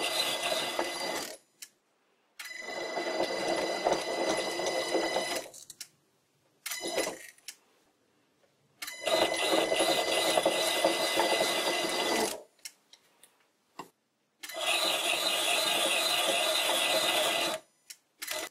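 Old sliding-spindle bench lathe running in repeated thread-cutting passes, the tool bit scraping a thread into a spinning wooden cylinder with a steady whine from the machine. There are four runs of about three seconds each and one shorter one, with silent gaps between them. The cut tears the glued wood instead of forming a clean thread.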